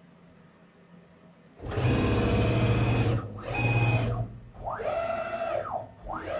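A CNC-converted BF30 milling machine's axis drive motor moving the table at high feed. The sound starts suddenly about a second and a half in as a loud mechanical whine and rattle, dips briefly, and later turns into a whine that rises and falls in pitch a few times as the motor speeds up and slows down.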